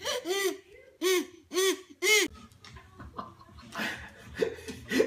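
A toddler blowing into a wooden toy whistle: about five short, loud hoots in the first two seconds, each rising and falling in pitch. Softer baby sounds and low voices follow.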